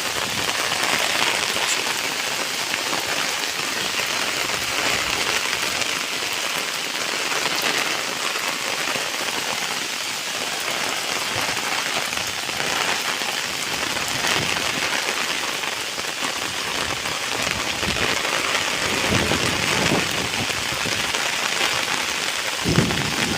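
Steady rain hissing on flooded fields, with a few brief low thumps near the end.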